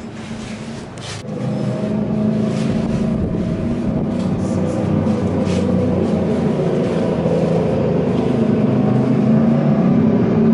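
Suzuki air-cooled inline-four motorcycle engine running at a steady idle through its four-into-one header pipes. It gets louder about a second in and holds there.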